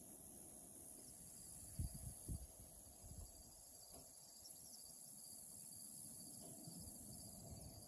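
Faint, steady high-pitched chirring of insects in grass. A couple of soft low thumps come about two seconds in.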